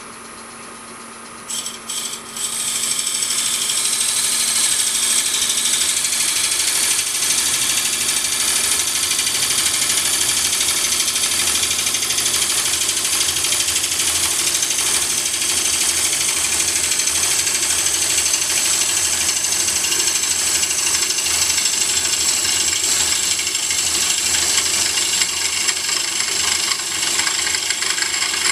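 Lathe running at a little over 700 RPM, then after a couple of brief knocks about two seconds in, a steady loud hiss as the curved knife of a Oneway coring system, with a Hunter Korpro carbide cutter, bites into the spinning wood blank and peels off a stream of long shavings.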